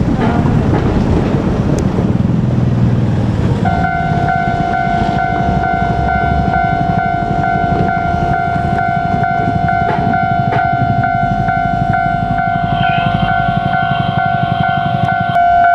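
A train passing with a heavy rail rumble. About four seconds in, a level-crossing warning alarm starts ringing steadily with a repeating electronic tone over the continuing rumble.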